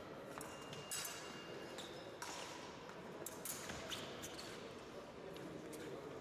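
Épée bout in progress: the fencers' footwork on the piste makes scattered sharp taps and clicks over the hum of a large sports hall.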